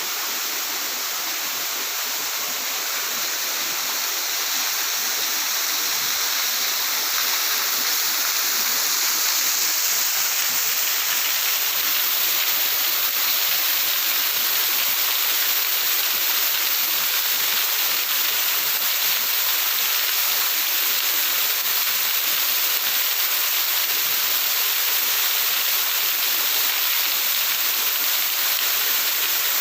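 Waterfall: a steady rush of falling water, a little louder after the first few seconds and then even.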